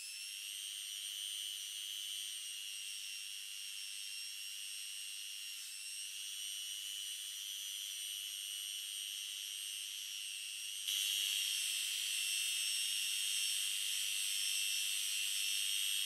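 Handheld rotary tool running at high speed with a small abrasive wheel polishing a steel chisel blade: a steady high-pitched whine. It jumps louder about eleven seconds in and cuts off suddenly at the end.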